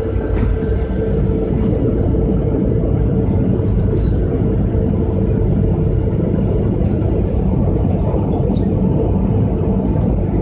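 Jet airliner heard from inside the passenger cabin while it moves on the ground: a loud, steady rumble of engines and rolling wheels with a steady hum over it.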